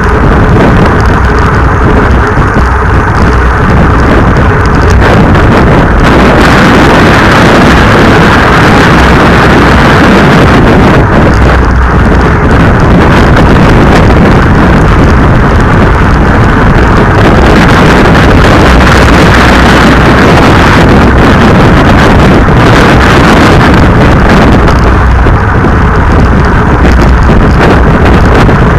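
Wind buffeting a bicycle-mounted action camera's microphone at racing speed, a loud steady rushing noise with road and tyre hum underneath.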